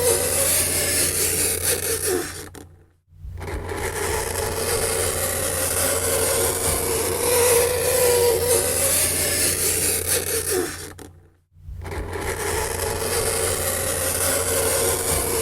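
Fingernails scraping across a chalkboard: a continuous harsh scratching with a wavering squeal. It breaks off into brief silence twice, about three seconds in and again near eleven seconds.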